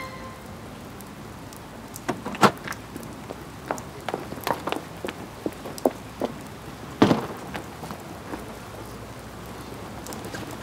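Rain falling: a steady hiss with scattered drops ticking on hard surfaces, and one louder thump about seven seconds in.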